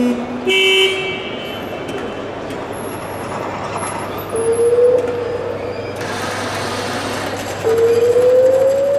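A vehicle horn toots twice at the start, then a siren winds up: first a short rising note about halfway in, then, near the end, a long one whose pitch climbs steadily and keeps rising.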